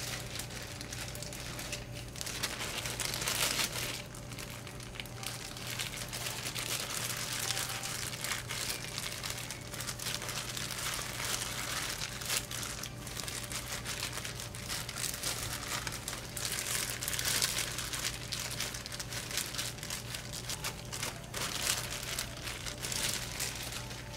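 Thin disposable plastic gloves crinkling and rustling in irregular bursts as gloved hands stuff rice into fried tofu pockets, over a steady low hum.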